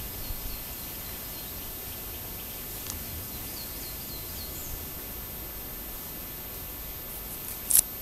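Woodland ambience under a steady hiss: faint, short, high bird chirps come and go in the first half, and a sharp click sounds near the end.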